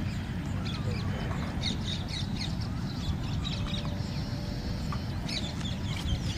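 Birds calling outdoors: a string of short high chirps and squawks over a steady low rumble.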